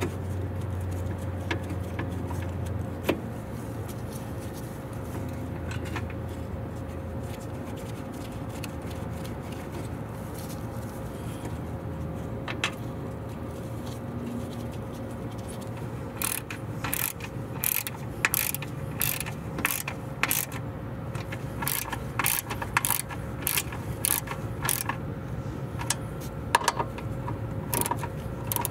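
Hand ratchet with a socket clicking in quick, uneven runs over the second half, turning the hood latch mounting bolts. A few scattered clicks of handling of the latch come before it.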